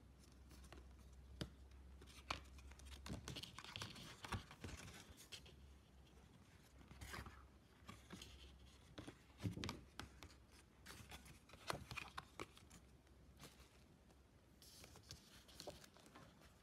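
Faint handling of product packaging during an unboxing: scattered clicks and taps with short rustles and crinkles of cardboard and plastic, some sounding like tearing.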